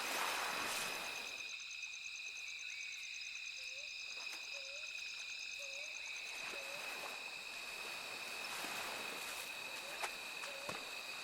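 Forest dawn ambience: a steady high insect drone with a fast pulsing trill above it, and a bird repeating a short low hooting note about once a second, in two runs.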